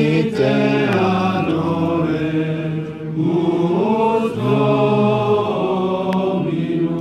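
A small choir of men's and women's voices, nuns, friars and priests, chanting a liturgical hymn together in slow, long-held notes.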